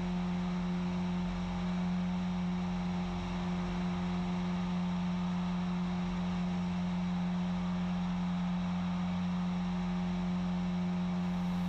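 Steady drone of the Cessna 177RG Cardinal's Lycoming IO-360 four-cylinder engine and propeller at climb power: one unchanging low hum with its overtones.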